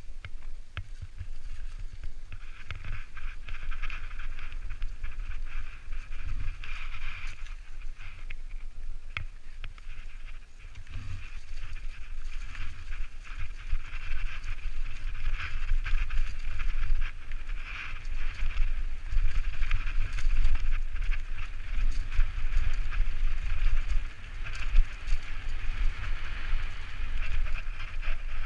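Propain Tyee enduro mountain bike descending a leaf-strewn dirt trail: wind rumbling on the camera microphone, tyres rolling over leaves and dirt, and the bike rattling and clicking over bumps. It gets louder from about a third of the way in as the speed picks up.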